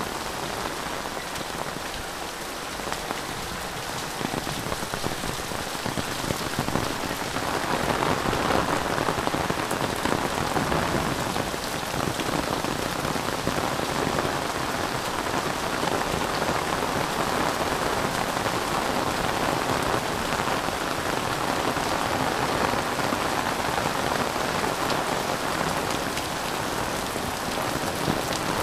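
Heavy rain falling steadily on leaves, roofs and wet ground, growing louder a few seconds in and then holding steady.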